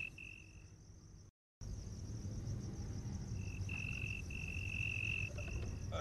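Crickets trilling in long, steady stretches over a faint higher insect buzz and a low hum. The whole sound drops out for a moment just over a second in, then the trill picks up again.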